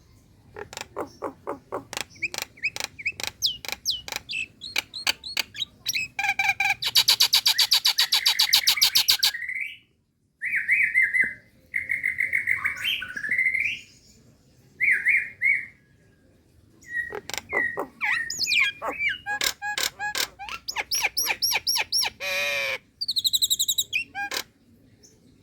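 Female Nias hill myna calling: rapid runs of clicks and short notes, a loud fast rattling series for a few seconds, then squeaky whistled calls and more clicking phrases.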